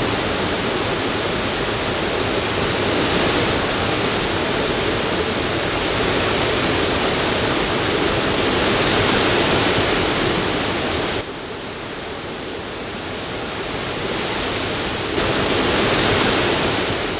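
Waterfall pouring into a pool in a steady rush of water. It drops a little in level about eleven seconds in and fades near the end.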